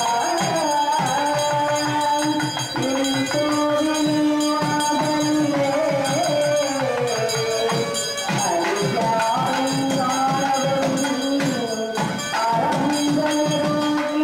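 Temple procession music: a wind instrument holds long notes that slide between pitches, over a fast, steady drum beat.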